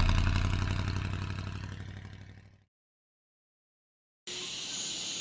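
The closing sound of a song, a deep, rapidly pulsing bass tone, fades out over about two and a half seconds into silence. About four seconds in, a steady hiss begins.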